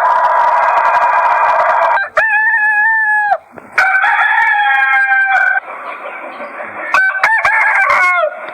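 Roosters crowing: several crows one after another, each a held call that rises at the start and drops at the end, with short, choppier calls near the end.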